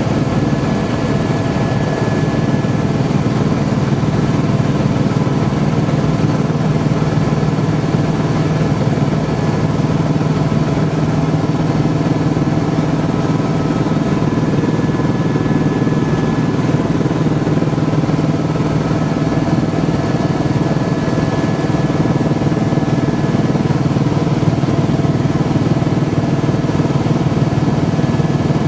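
Helicopter in flight, heard from inside the cabin: a loud, steady drone of engine and rotor, with several faint steady whining tones above it.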